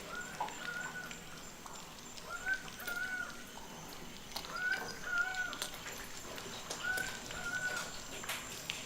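A bird repeating a short two-note call about every two seconds, each note held steady in pitch.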